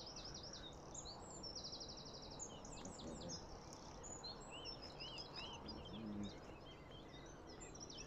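Several small birds singing over a steady low background hiss, with fast repeated trills and short chirps overlapping.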